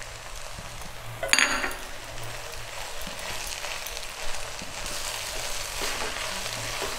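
Schezwan noodles and vegetables frying in a pot with a steady sizzle while being stirred and tossed with a wooden spatula, after spring onion greens are added. A single sharp clink sounds a little over a second in.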